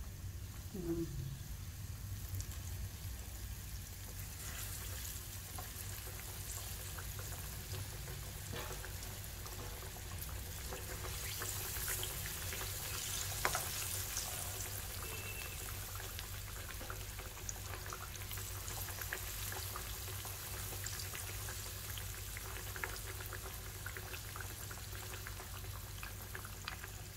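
Pork belly slices frying in a shallow pan of oil thickened with flour, a steady soft sizzle with many small crackles. The flour is stirred in to keep the oil from spattering, and wooden chopsticks give an occasional tick against the pan.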